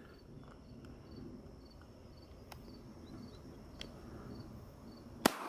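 Insects chirping faintly, a high chirp repeated about twice a second, then a single sharp gunshot near the end.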